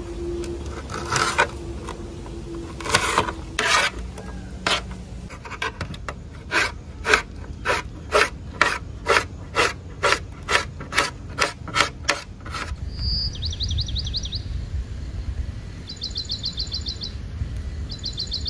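Knife slicing green chillies and tomato against an aluminium plate: sharp cuts, irregular at first, then a steady run of about two a second that stops about two-thirds of the way through. After that a bird gives short high trills a few times.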